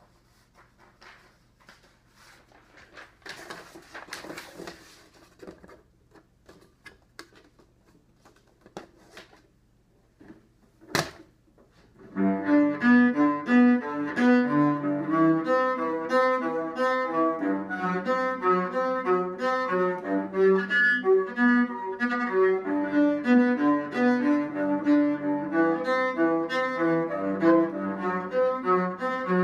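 Faint rustling and small knocks, then a sharp click about eleven seconds in. From about twelve seconds in, a cello is bowed in a steady run of changing notes.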